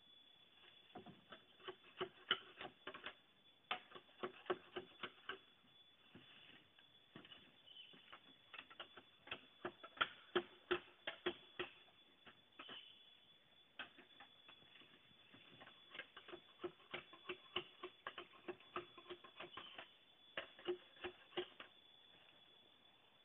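Quick runs of light clicks and hollow knocks from green bamboo poles being handled and worked, several strikes a second with short pauses between runs.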